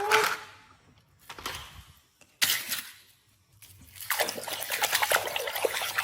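Water splashing and trickling as a toy vehicle is washed: two short splashes, then steady running, splashing water from about four seconds in.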